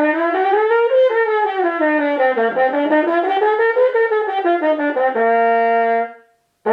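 Trumpet played with a bucket (velvet) mute: a smooth, slurred phrase that swells up and down in pitch, ending on a held low note that stops about six seconds in, with a new phrase starting right at the end.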